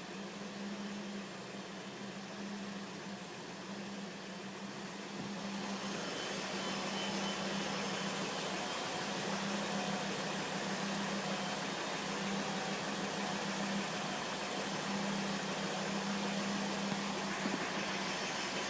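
2005 Volvo S40 T5's turbocharged five-cylinder engine running, with a steady low-pitched drone and a hiss that grows louder about five to six seconds in.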